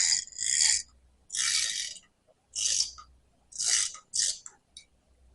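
Ratchet strap being cranked in short strokes: six rasping runs of ratchet clicks about a second apart, getting shorter toward the end. It is tensioning to draw the piston rod out of a hydraulic tilt cylinder.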